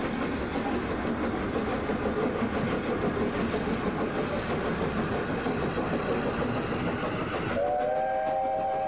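BR Standard Pacific steam locomotive working a passenger train away, its exhaust chuffing hard and steadily. About seven and a half seconds in, a long whistle sounds, several notes at once held steady.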